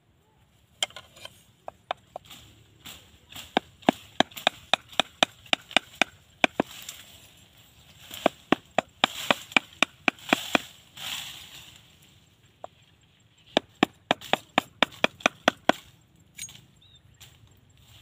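Machete chopping bamboo: three runs of quick, sharp knocks, about three or four strikes a second.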